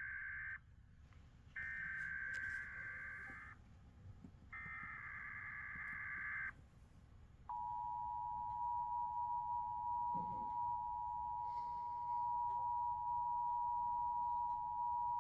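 Emergency Alert System SAME header: three bursts of warbling data tones, each one to two seconds long. After about a second's gap comes a steady attention tone held about eight seconds, opening a Required Monthly Test.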